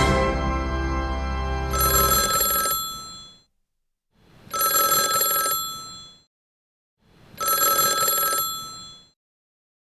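A telephone rings three times, each ring about a second long and about two and a half seconds apart. The ringing comes in as the tail of the preceding music ends about two seconds in.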